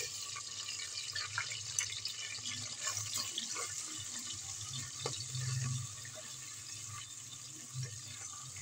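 Chopped garlic and ginger sizzling and crackling in hot ghee, a steady frying crackle, with a few light clicks of the spoon against the pot as they are stirred.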